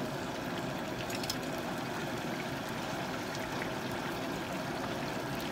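Propane turkey fryer in use: a steady hiss of the burner under the pot and the bubbling of hot peanut oil around a whole turkey as it goes down into the oil.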